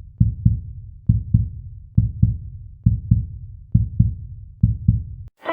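Heartbeat sound effect: low double thumps (lub-dub) repeating about once every 0.9 seconds, cutting off just before the end.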